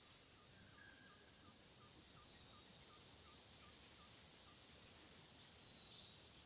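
Faint jungle ambience: a steady high insect drone, with a bird repeating about a dozen short chirps, about three a second, over the first four seconds or so.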